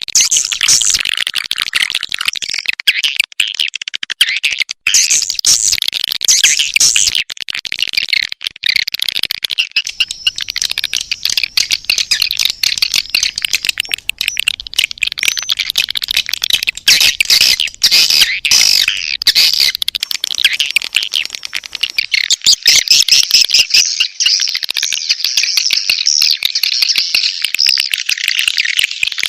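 Swiftlet courtship ('birahi') calls, played as a lure sound for swiftlet houses: a dense, unbroken stream of high, rapid twittering chirps and clicks.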